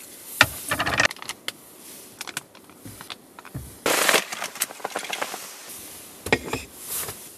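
Handling noises: scattered sharp knocks and clicks as things are set down on a small wooden table, a plate among them, with a longer rustle near the middle.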